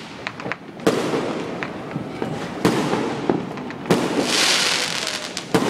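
Aerial fireworks bursting: four sharp bangs a second or two apart, with steady crackling between them and a spell of hissing crackle about four seconds in.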